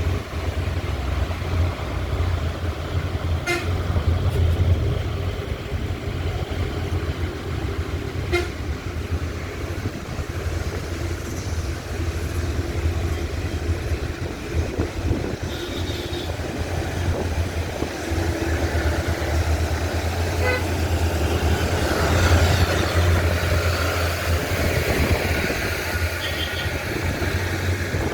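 A car driving along a road, with a steady low engine and road rumble. A vehicle horn sounds, held for a few seconds, partway through.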